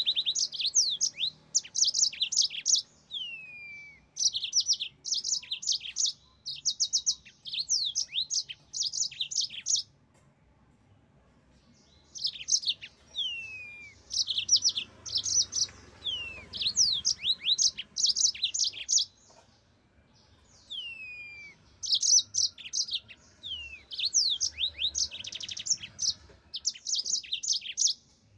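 Yellow-fronted canary singing vigorously: phrases of fast, high twittering notes mixed with downward-sliding whistles. The phrases are broken by short pauses and twice by quieter gaps of about two seconds.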